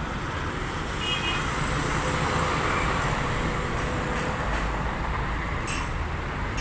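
A large bus's engine runs close by with a steady low rumble, under an even hiss of traffic noise.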